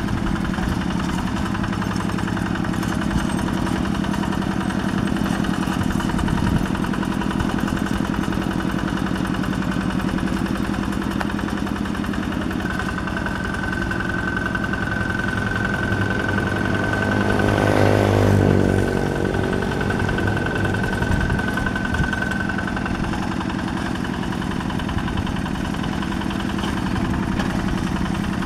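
Single-cylinder Yanmar diesel engine of a two-wheel hand tractor running steadily under load while ploughing. It grows louder for a moment about 18 seconds in as the machine comes close, and a thin, steady high whine is heard from about 13 to 23 seconds in.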